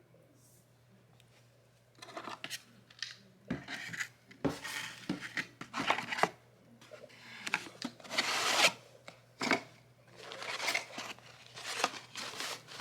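Packaging being handled and unwrapped by hand: repeated crinkling and rubbing bursts in short irregular spurts, starting about two seconds in.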